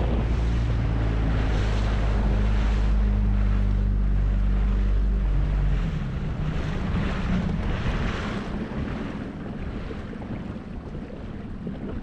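Dinghy outboard motor running steadily under way, with water rushing past the hull and wind on the microphone. About halfway through, the motor's low hum drops off and the sound gets quieter, leaving mostly water and wind.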